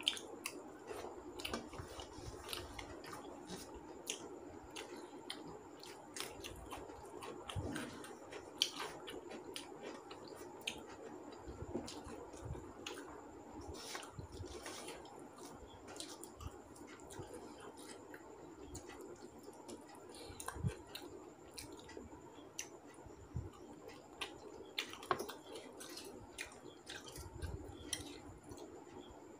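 Close-up eating sounds: chewing and wet mouth clicks, with a hand squishing rice and curry on a steel plate, as scattered short clicks over a faint steady background hum.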